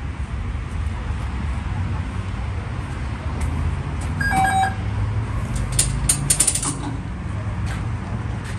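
Card reader on a tripod ticket turnstile gives a short beep, broken into a few quick pulses, as a transit card is tapped. About a second later comes a quick run of sharp metallic clicks and rattles from the turnstile. The card is not accepted and the gate stays locked. A steady low street rumble runs under it all.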